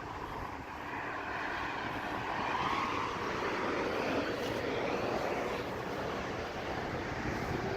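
Vehicle driving: a steady rush of engine and road noise that swells a little a couple of seconds in.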